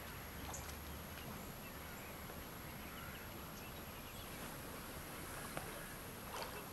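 Faint riverside ambience: a low steady hush with a few scattered soft clicks.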